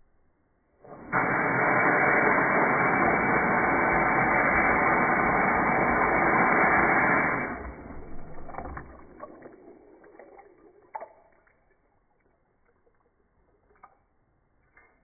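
Bathroom tap running into a sink basin partly filled with water, a steady rush that starts about a second in and stops after about six seconds, followed by trickling and a few drips.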